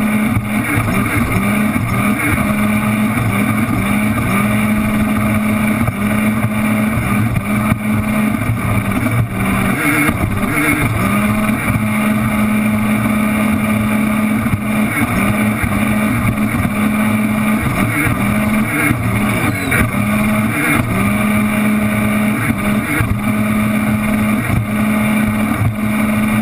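2007 Sea-Doo RXT personal watercraft running flat out at race speed, its engine note steady but dropping in and out as the hull skips over the chop, over a constant rush of water and spray.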